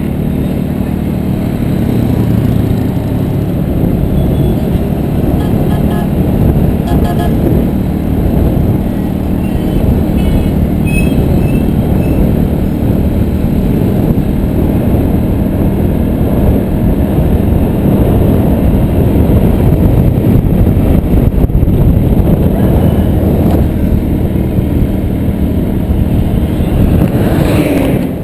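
Motorbike riding along a road: loud, steady wind rush over the camera's microphone mixed with the bike's engine and tyre noise.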